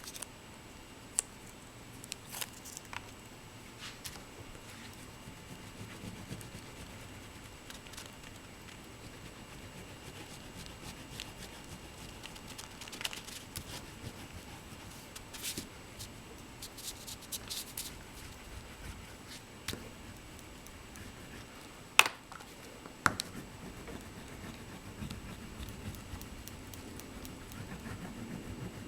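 Soft scratching and rustling of hands working with paper and art materials, with scattered light clicks and taps. The sharpest click comes about 22 seconds in, with another a second later.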